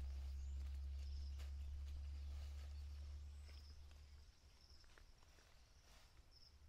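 Outdoor ambience. A low wind rumble on the microphone dies away about four seconds in, with scattered faint clicks and rustles and short high chirps repeating every second or so.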